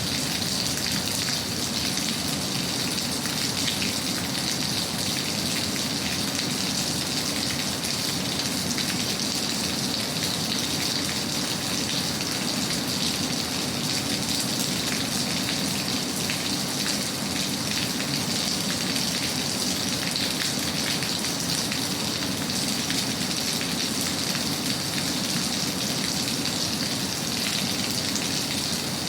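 Steady rain falling and pattering on a surface, an even hiss with fine crackle that does not let up.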